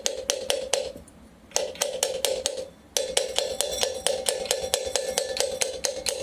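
Rapid light taps, about five a second, on a ceiling fan's aluminium cover, each tap ringing briefly, as the cover is knocked down onto the bearing to seat it. The tapping stops twice for a moment.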